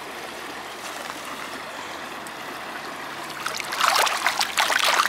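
Steady sound of running water, then, about three and a half seconds in, loud splashing and swishing as a hand sloshes in shallow water, rinsing sand off a gold nugget and coin.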